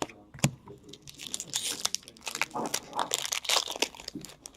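Foil wrapper of a hockey card pack crinkling and tearing as it is ripped open and handled, a quick run of crackles after a single sharp click.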